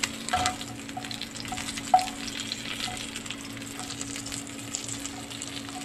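Hilsa fish pieces sizzling and crackling as they fry in hot oil in a pan. A few light knocks break in, the sharpest about two seconds in.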